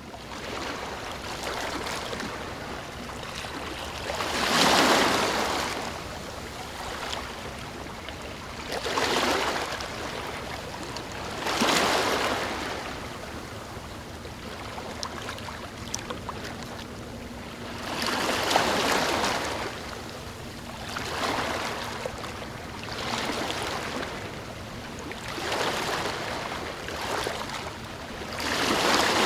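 Calm sea waves washing onto a shore: a steady wash of water noise that swells into a louder rush with each wave every few seconds, then falls away.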